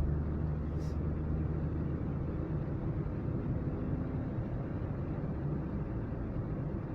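Steady engine and road noise inside a moving car's cabin, a low hum with no sudden events.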